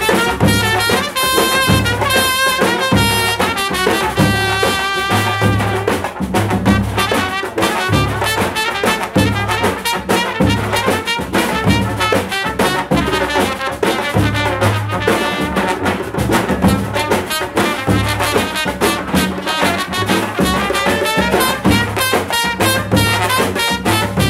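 Balkan brass band playing a čoček tune live: trumpets, trombone and alto sax carry the melody over a pulsing sousaphone bass line, with darbuka, davul and snare drum keeping the beat.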